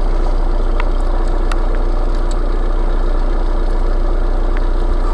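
Car engine idling steadily with a low, even hum, and a few faint clicks.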